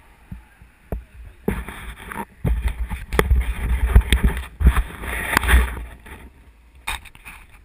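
Rushing, rumbling wind on an action camera's microphone with rattling knocks and clicks as the camera is moved about, from about a second and a half in until about six seconds in. A few short clicks near the end.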